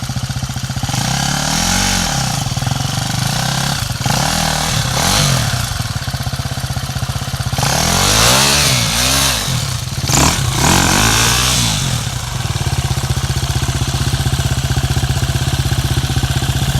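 Off-road vehicle engine revving up and down in several bursts, the longest run of revs coming about eight to twelve seconds in, then settling to a steady idle.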